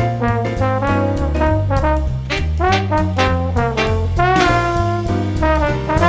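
Background music: upbeat swing jazz with a brass melody over a stepping bass line and drums.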